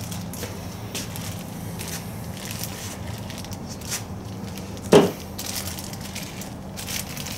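A plastic parts bag holding new fork seals rustling and being handled on a workbench, with scattered light clicks and knocks and one louder knock about five seconds in.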